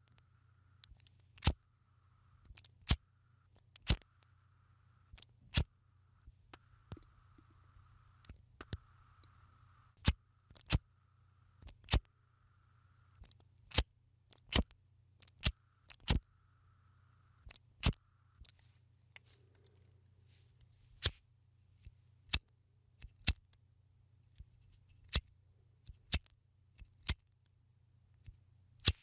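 Flint-wheel lighter struck over and over, a sharp click each time the thumb spins the spark wheel, about twenty strikes at uneven intervals of one to two seconds. A faint hiss comes between some of the strikes in the middle stretch.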